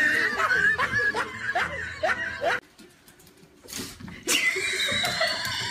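A person laughing in a quick run of short bursts, breaking off after about two and a half seconds; after a short silence a higher, wavering sound begins.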